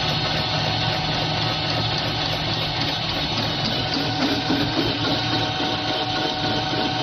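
Steady mechanical hum and whir of running production machinery, a carrier roller assembly machine and its spindle drives, holding several fixed tones with no distinct strokes or impacts.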